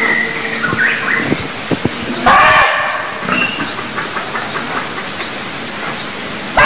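Muntjac (barking deer) calling: a short, loud, harsh bark about two and a half seconds in and another right at the end. A small high chirp repeats about once a second behind them.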